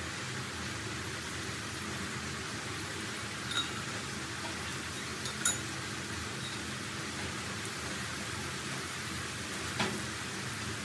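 Potato sticks deep-frying in hot oil in a wok: a steady sizzle, with a few sharp clinks.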